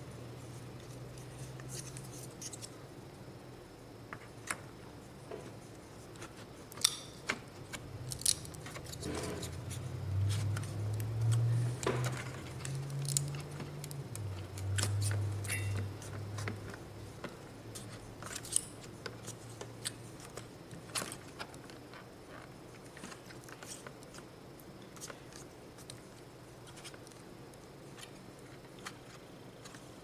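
Plastic hot-swap fan modules being handled and seated in an HP ProLiant DL360 G7 server's fan bay: scattered small clicks and knocks, with a low rumble for several seconds near the middle.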